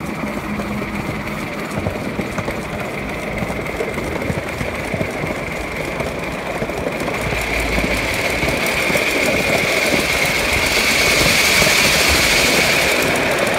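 Live-steam miniature locomotive pulling a ride-on train along a raised track, its running noise and wheels on the rails carrying a steady high-pitched ringing. It grows louder toward the end, with a hiss as steam blows out of the locomotive.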